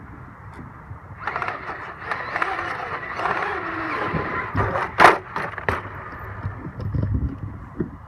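Traxxas XMaxx electric RC monster truck driving: motor and drivetrain whine with tyre noise, starting about a second in, and a cluster of sharp clicks and knocks about five seconds in. The truck's rear differential is failing, with a section of gear teeth damaged, which makes its drivetrain click.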